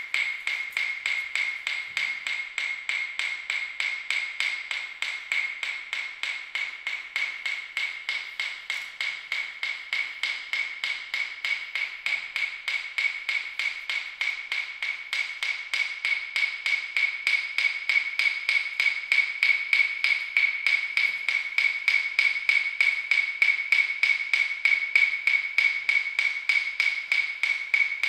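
Fast, perfectly even ticking: short clicks, each with the same bright ring, repeating without a break and growing somewhat louder in the second half.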